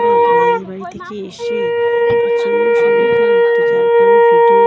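Conch shell (shankha) blown in a long, steady held note to welcome the bride. The note breaks off about half a second in and sounds again about a second later, holding on.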